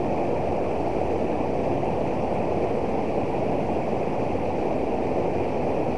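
Fast river water rushing over a low weir and around rocks: a steady, unbroken rushing noise, deepest in the low range.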